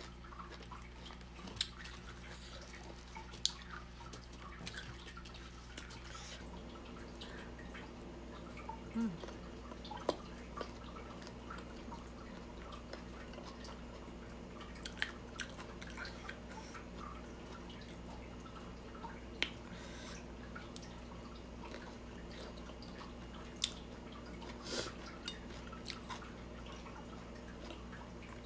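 Close-up wet chewing of a spicy mango, cucumber, tomato and salmon salad, with a few scattered sharp clicks of a metal spoon against a ceramic bowl. A steady low hum runs underneath.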